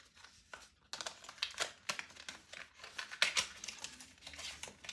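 Packaging crinkling and rustling as it is handled, in a string of short, irregular rustles.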